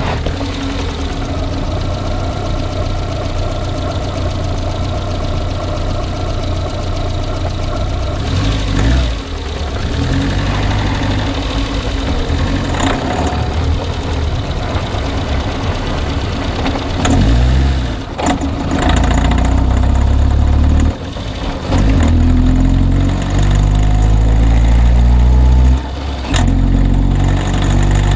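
Car engine running with a knock, idling and then revved up a few times, its pitch rising in the second half.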